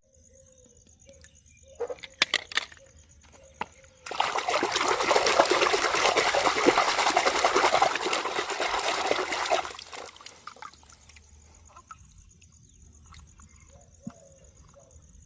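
Water running for about six seconds, starting about four seconds in and tailing off, with a few light clicks before it.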